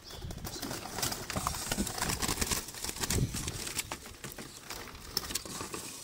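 A trapped dove flapping and scrambling inside a wooden slatted trap: a dense run of wing flutters and knocks against the wood that eases off near the end.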